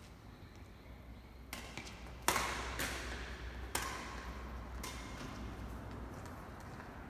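Badminton rackets striking a shuttlecock in a doubles rally: about five sharp hits spaced half a second to a second apart, the loudest a little over two seconds in.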